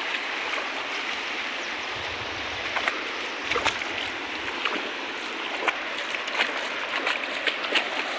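Shallow river water flowing and lapping steadily, with small splashes scattered through.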